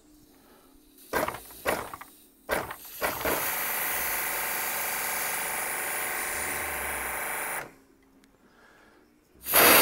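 A pressure washer's three-phase Nicolini electric motor and plunger pump starting by itself about three seconds in, running steadily for about four and a half seconds and then cutting out abruptly: the auto stop-start switching the machine on and off as a deliberate leak drops the pressure. A few knocks come before it starts, and a loud burst of hiss near the end.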